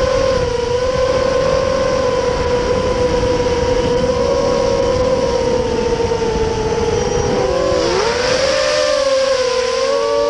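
FPV quadcopter's motors and propellers running with a steady whine over a rushing noise. About eight seconds in, the pitch dips briefly and rises again.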